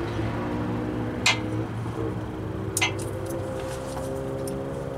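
Two sharp metal clicks about a second and a half apart as a ratchet and socket work on the transmission pan bolts, over a steady background hum of held tones that shift in pitch.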